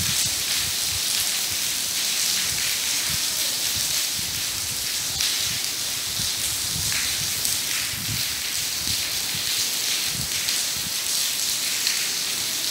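Steady rain falling, a constant even hiss, with soft low thuds now and then.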